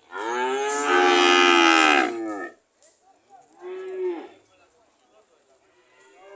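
Cattle mooing: one loud, long moo that rises and falls in pitch, then a shorter, quieter moo about halfway through and a faint one near the end.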